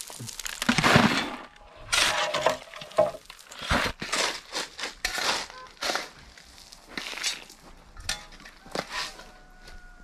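Shovel repeatedly scraping into and scooping loose rubble, about one stroke a second, with crunching and stony clinks as it is tipped into a bucket.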